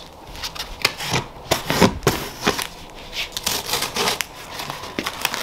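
A taped cardboard box being opened by hand: packing tape cut and pulled at the box top, with irregular crackles, scrapes and taps of tape and cardboard.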